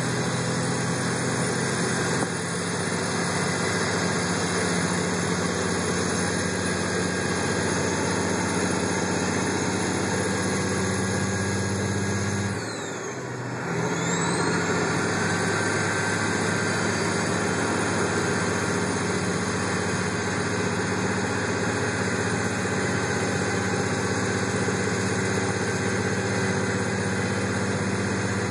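Tractor-trailer's diesel engine pulling steadily under load, heard from inside the cab. About halfway through it drops off for a second or so as a gear is changed, then picks up again.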